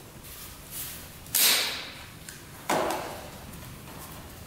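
Two sharp clunks about a second and a half apart, each fading over about half a second, as the fuel tank of a 1974 Honda CB360 motorcycle is worked loose and lifted off the frame.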